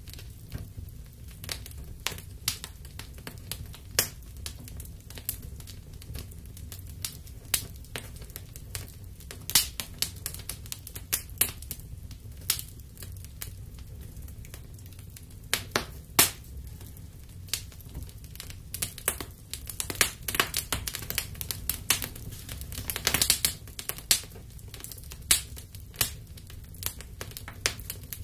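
A fabric puppet head burning, the flames crackling with irregular sharp pops over a steady low rumble; the pops come thicker in the second half.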